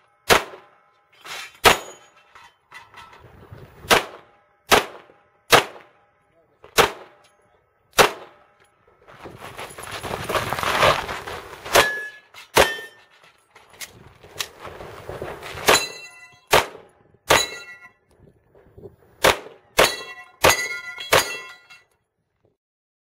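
A string of 9mm pistol shots from a Glock 17, fired one at a time about half a second to a second apart, with steel targets ringing after many of the hits. Two longer stretches of rustling noise fall between the shots.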